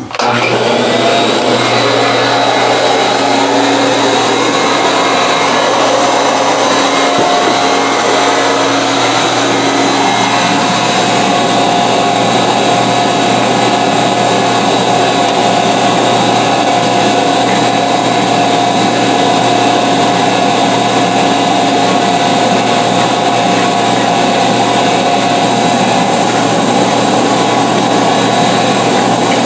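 Vacuum cleaner switched on, its motor spinning up in the first second and then running loud and steady with a constant whine.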